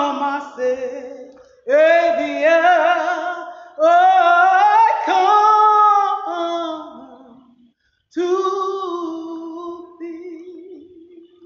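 A woman singing a slow song without accompaniment, in phrases a couple of seconds long with long held, wavering notes and short breaths between them.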